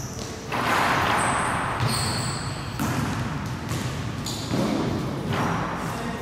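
Basketball game on a hardwood gym floor: the ball bouncing, sneakers squeaking and players running, with a hall echo. A few short high squeaks come about a second or two in.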